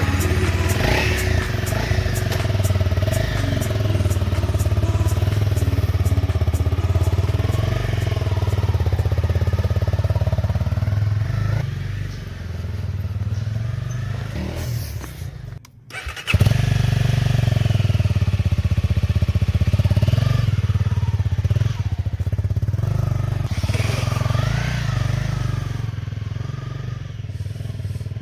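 Honda CRF250L's single-cylinder engine running as the motorcycle is ridden, its pitch rising and falling with the throttle. The sound cuts out briefly about sixteen seconds in, then carries on.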